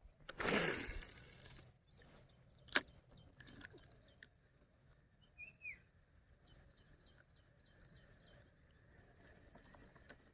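Small birds chirping, many short high calls in quick runs, with one short whistle about five seconds in. Early on there is a brief rushing noise lasting about a second and a half, then a single sharp click.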